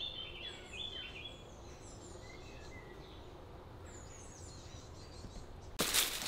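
Woodland birdsong: several small birds chirping and whistling in short calls over a faint steady hiss. Near the end it cuts sharply to a much louder rustling and crackling of dry twigs and leaf litter being handled.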